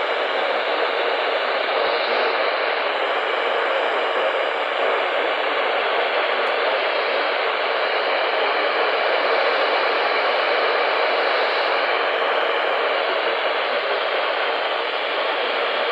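Steady hiss of radio static from a receiver with no signal on it: no tones or voice, just even noise.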